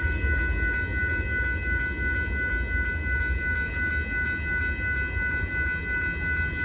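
Union Pacific freight train of hopper cars rolling past, a steady low rumble of wheels on rail, with several steady high tones held over it.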